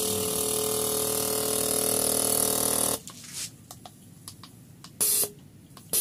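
Fuel injector on a pressurised test bench, pulsed by an injector tester: about three seconds of steady buzzing with the hiss of fuel spray, which stops abruptly. A few faint clicks follow, then two short spray bursts near the end. The mechanic finds this MR18 number one injector sometimes fails to close.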